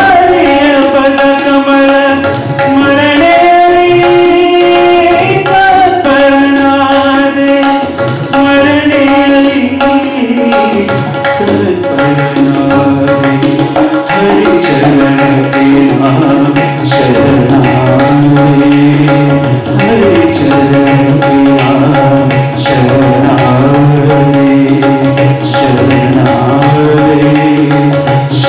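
Male vocalist singing an Indian classical piece, holding long notes and gliding between them over a steady drone, with tabla strokes accompanying.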